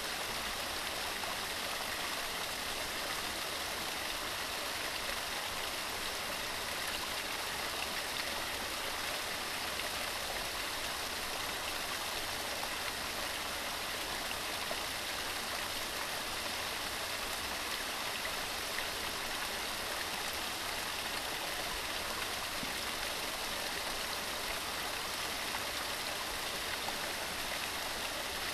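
Waterfall running steadily: a constant rush of falling water, more hiss than rumble, with no breaks or changes.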